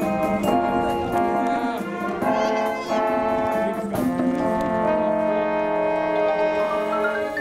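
School wind band playing, with French horns, flutes and saxophone, in sustained chords. It finishes on a long held chord that cuts off near the end.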